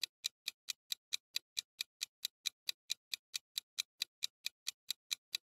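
Countdown timer sound effect: a steady clock-like ticking, about four to five ticks a second, marking the time to guess.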